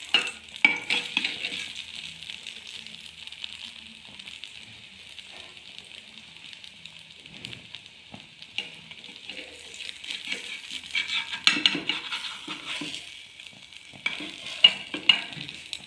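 Bread omelette toast sizzling steadily in hot oil in an aluminium frying pan. A spatula scrapes and knocks against the pan in the first second and again over the last few seconds as it presses and moves the toast.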